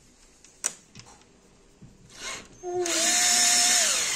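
Cordless drill boring into a white plastic chair leg to widen a hole. After a few faint clicks, it starts about two-thirds of the way in with a rising motor whine over a steady rasp of the bit cutting plastic. The whine dips slightly near the end.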